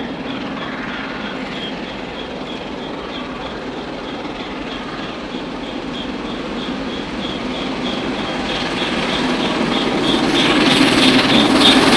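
Steam locomotive hauling a passenger train as it approaches, growing steadily louder over the last few seconds, with a faint high-pitched pulse about four times a second.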